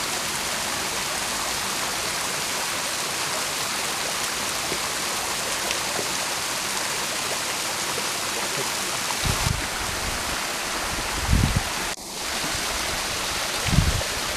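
Small waterfall and its stream: water splashing down a rock face and running over stones, a steady rushing noise. A few short low thumps come in the second half, and the sound dips briefly about twelve seconds in.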